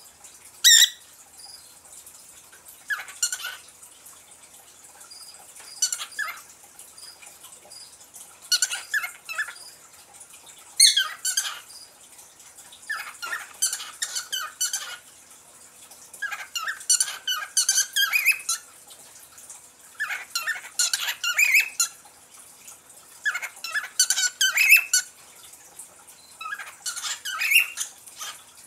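Pet parrot chirping in short, squeaky chattering bursts, one burst every two to three seconds.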